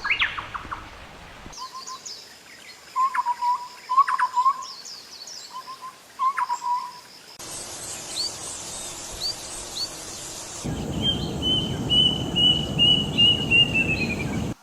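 Calls of several different bird species spliced one after another, the recording changing abruptly three times. Low repeated calls with sharp high notes give way to three faint high chirps over hiss, then to a rapid string of about nine high notes that falls slightly at the end over a low rumble.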